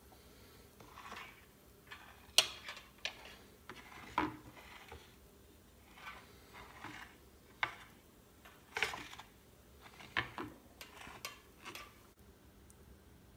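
Metal fork tines scraping through spread hummus and clicking against a ceramic plate: soft scrapes broken by irregular sharp taps as ridges are combed into the dip.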